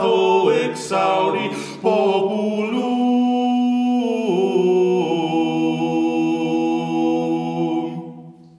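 Swedish bagpipe (säckpipa) and oud playing the closing bars of a slow medieval song, with a man's voice finishing the last sung line in the first two seconds. The pipes then hold a steady drone under a long final note, which dies away near the end.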